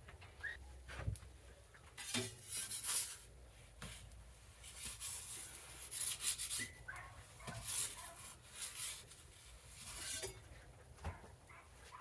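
Metal pizza peel scraping across the stone floor of a Gozney Dome pizza oven as it is worked under a pizza to turn it, in several separate scrapes.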